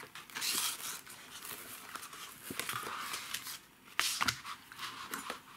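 A thin dried sheet of apple fruit leather being peeled off a silicone dehydrator tray and handled, with irregular rustling and crinkling. There is a sharp click about four seconds in.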